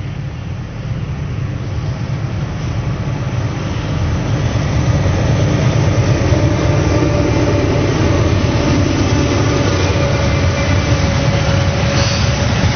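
Norfolk Southern freight train led by a GE Dash 9-40CW and an EMD SD70M diesel locomotive, approaching and passing close by. The diesel rumble grows louder over the first five seconds, then holds steady as the locomotives and then the freight cars roll past.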